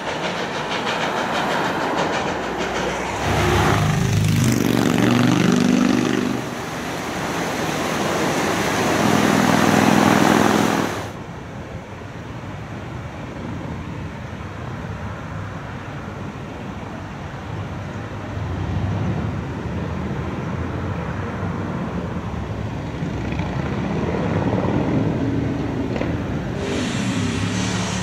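Visp–Zermatt HG 2/3 No. 6 steam locomotive running with its train: rail clatter and steam, with a low droning tone twice for a few seconds. About eleven seconds in, the sound drops abruptly to quieter, steadier locomotive running, with the droning tone returning near the end.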